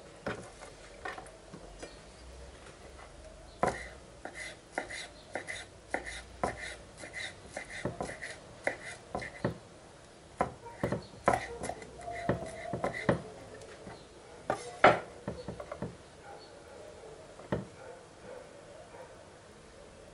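Kitchen knife chopping fresh dill on a wooden cutting board: a run of sharp knocks about two a second, then more scattered knocks, the loudest about fifteen seconds in.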